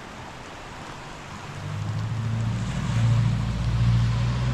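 A running engine's low, steady hum swells in about one and a half seconds in and stays loud.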